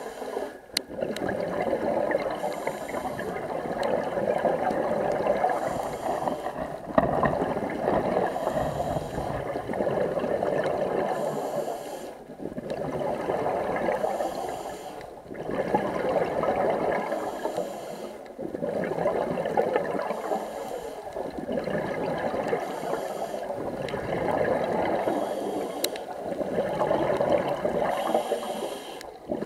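A scuba diver breathing through a regulator underwater. Each breath brings a hiss of drawn air, then a swell of gurgling exhaust bubbles, and the cycle repeats about every three seconds.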